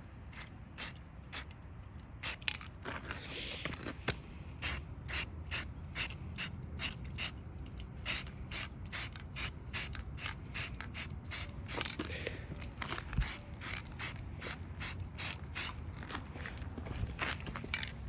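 Aerosol spray paint can being shaken, its mixing ball rattling in sharp clicks about two to three times a second, to mix the paint before spraying.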